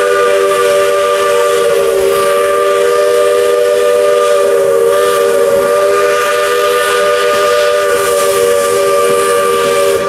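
Steam locomotive's whistle blowing one long, loud blast: a chord of several tones sounding together, held steady with a slight waver.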